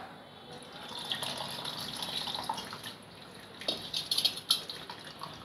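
Tamarind water being poured into a pot of sambar, splashing into the liquid: a steady pour, then louder splashes about four seconds in.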